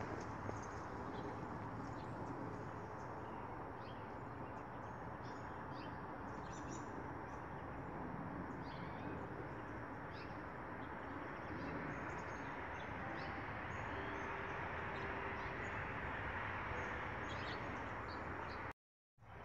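Small birds chirping in short, scattered calls over a steady background hiss of outdoor noise.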